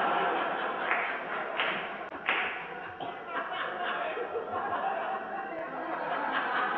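Live audience laughing at a joke, with a few sharp louder knocks standing out in the first two and a half seconds.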